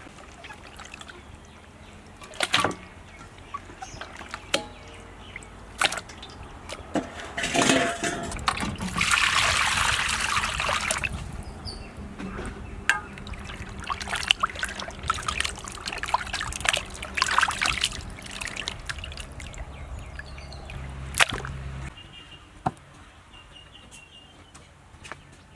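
Water poured out in a stream that splashes for about two seconds, among scattered knocks and clicks of handling. A low hum cuts off near the end.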